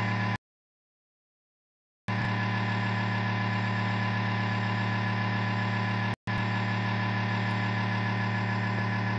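Hot air rework station running with a steady electric hum while its nozzle heats a tuner IC to reflow the solder under it. The sound cuts out completely for a second and a half near the start and again for a moment about six seconds in.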